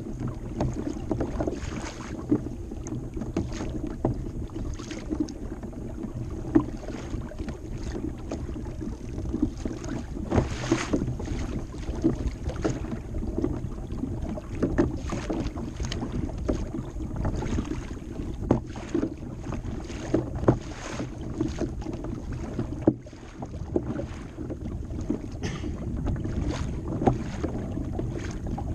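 Small waves slapping and splashing irregularly against a plastic fishing kayak's hull, over a steady rush of wind on the microphone.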